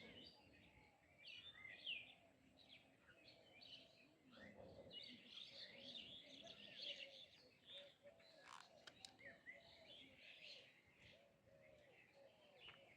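Faint birds chirping, with many short, quick calls overlapping and a run of lower repeated calls through the middle.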